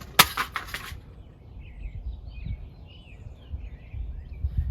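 Small birds chirping faintly in the background over a low rumble on the microphone, with a short burst of rustling noise just after the start.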